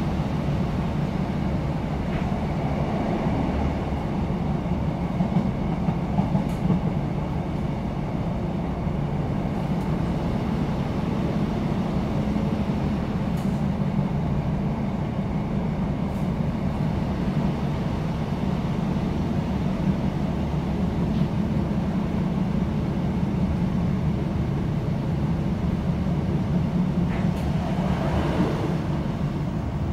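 Cabin noise aboard a British Rail Class 156 Super Sprinter diesel multiple unit in motion: a steady low rumble from its underfloor six-cylinder Cummins diesel engine and its wheels on the rails, with a few faint clicks. The noise swells briefly near the end.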